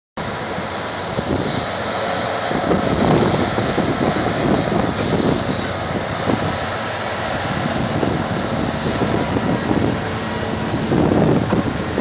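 Diesel engines of John Deere and Komatsu tracked hydraulic excavators running as they dig and swing loads of dirt, swelling louder a few times, with wind buffeting the microphone.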